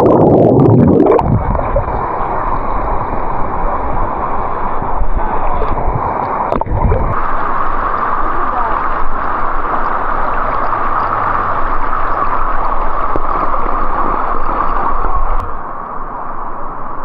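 Creek water rushing and gurgling steadily over rocks and into rock pools. The sound changes abruptly twice, about seven seconds in and near the end.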